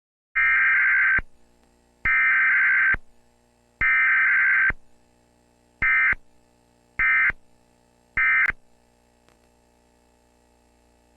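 Emergency Alert System SAME digital data tones: three long bursts of about a second each, then three short bursts, the pattern of the three-times-repeated alert header followed by the three end-of-message bursts.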